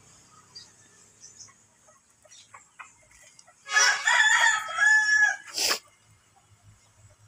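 A rooster crowing once, a call of about two seconds starting about halfway through, over soft scattered clucking from the flock. A short sharp noise follows right after the crow.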